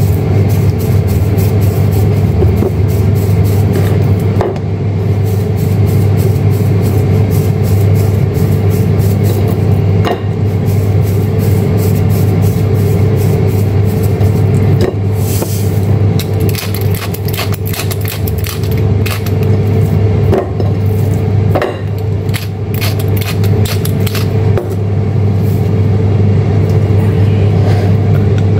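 Air fryer fan running with a steady hum while the fryer preheats. Over it comes the rapid rattle and tapping of a plastic salt shaker, thickest in the first few seconds and scattered after.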